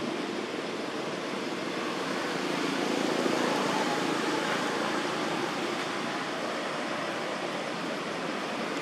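Steady outdoor background noise, an even hiss with no distinct events.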